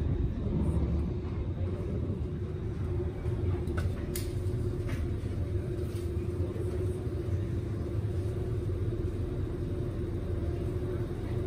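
Steady low rumble of a ferry's engines while it is underway, with a constant hum over it. A few faint knocks about four to five seconds in.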